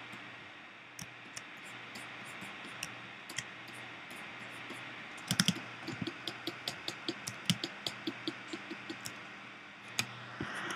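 Computer keys clicking: a few scattered clicks, then a quick even run of about five clicks a second from about five seconds in, over a faint steady hiss.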